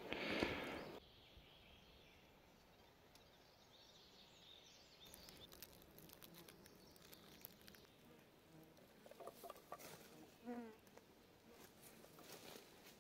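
Near silence: a short burst of noise in the first second, then faint rustling and scattered light clicks, with a brief series of falling notes about ten seconds in.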